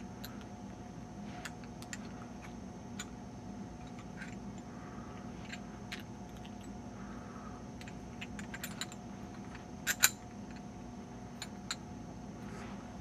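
Light metallic clicks and ticks from a Master Lock padlock and a homemade hacksaw-blade rake being handled, scattered and irregular, with a sharper double click about ten seconds in. A low steady hum sits underneath.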